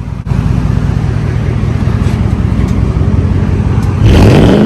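Ford 5.4-litre Triton V8 running through a muffler-deleted exhaust, loud and low. About four seconds in it revs up, rising in pitch.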